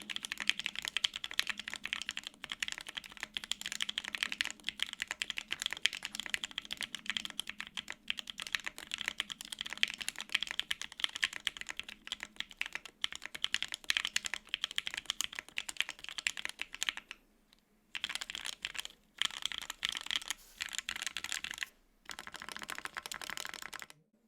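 Fast continuous typing on a custom mechanical keyboard: Gateron Ink Black V2 linear switches lubed with Krytox 205g0, on a polycarbonate plate in a gasket-mount case, with GMK double-shot ABS keycaps. The typing pauses briefly a few times in the second half, then stops just before the end.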